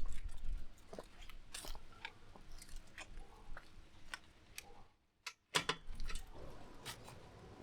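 Scattered light clicks, taps and rustles of small objects being handled, with a brief cut to silence about five seconds in.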